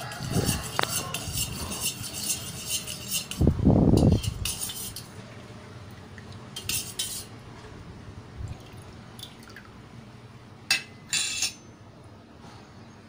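A steel spoon stirring water in a stainless steel tumbler, clinking and scraping against the rim and sides, with a louder dull thump a few seconds in. Later come only a few scattered light clinks.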